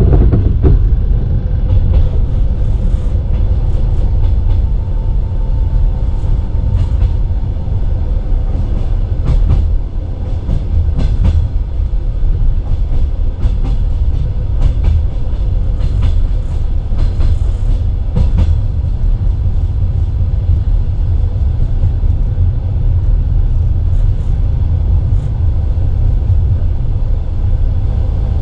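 Passenger train carriage running along the track, heard from inside: a steady low rumble from the wheels on the rails, with scattered sharp clicks and clacks.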